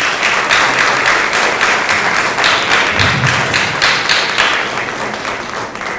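Audience applauding, many hands clapping together, dying down toward the end.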